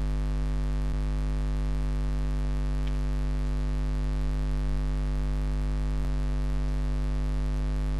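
Steady electrical mains hum with hiss, as from a noisy computer microphone input, with a few faint clicks.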